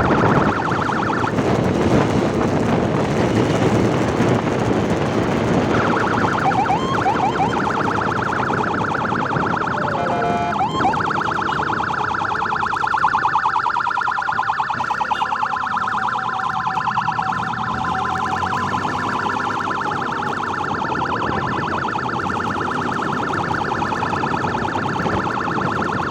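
Ambulance electronic siren sounding a fast, steady warble. Rushing wind and road noise lie under it for the first several seconds, and a few short pitch sweeps come through around the middle.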